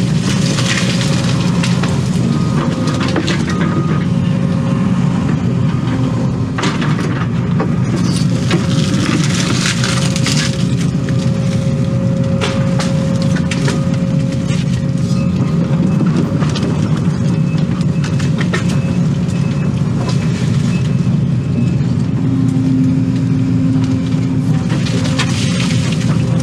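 Excavator's diesel engine running under load, heard from inside the cab, with a steady whine, while the bucket and thumb grab and crush logs and brush, giving repeated cracks and snaps of breaking wood.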